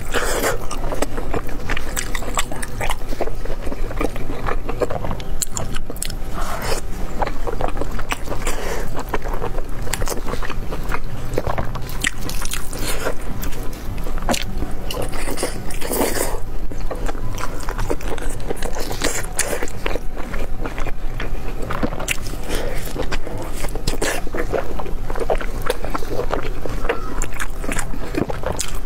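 Close-miked biting and wet chewing of saucy, fatty braised pork, with many sharp mouth clicks and smacks all through.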